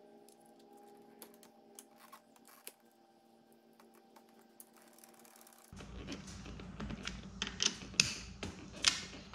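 Plastic and metal parts of a boat's outboard remote control box clicking and rattling as the throttle cable is fitted into its slot and bracket. Sparse light clicks over a faint steady hum give way, about six seconds in, to a louder run of sharp clicks and rattles.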